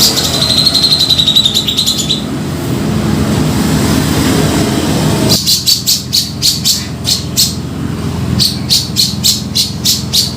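Grey-cheeked bulbul (cucak jenggot) calls played as a bird-trapping lure: a fast trill for about the first two seconds, then from about halfway a run of short, sharp chipping notes, three or four a second. A steady low rumble runs underneath.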